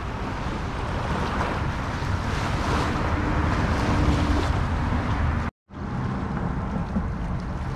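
Wind buffeting the microphone over small waves lapping onto a shallow shoreline. The sound cuts out completely for a moment about two-thirds of the way through.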